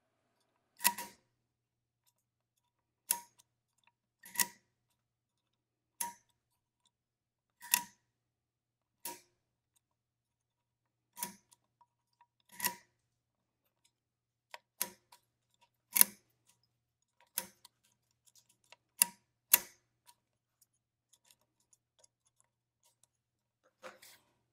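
Pico chain-type adding machine (a Gem clone) worked with a stylus: a series of sharp metallic clicks, one per stroke of a column, about fifteen in all at intervals of one to two seconds, as 25 times 25 is entered by repeated addition.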